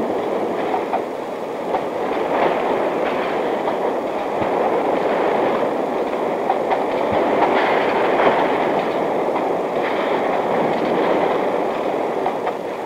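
Steady mechanical clatter of bakery dough-handling machinery, conveyors and dough-shaping rollers running continuously with a rattling, train-like rhythm.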